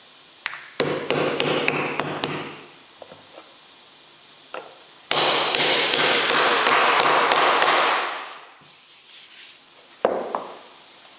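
Tool work on a plywood formwork panel: a few sharp taps, then two loud stretches of steady noise with a low hum, about two and three seconds long, and a short burst near the end.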